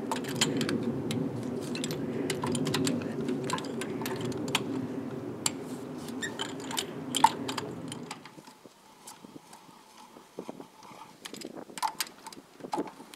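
Small metal clicks and clinks from a ratchet and socket working the lug nuts on a Toyota FJ Cruiser's rear wheel, over a steady low background noise that drops away about eight seconds in.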